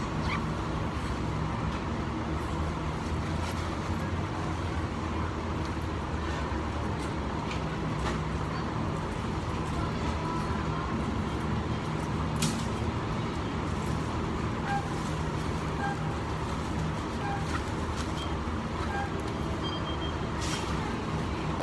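Steady low machine hum of store ambience, with a few faint clicks and several short faint beeps in the second half.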